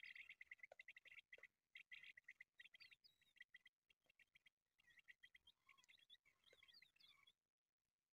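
Faint, rapid chirping of birds, coming in quick bursts of short notes with brief gaps, falling quiet near the end.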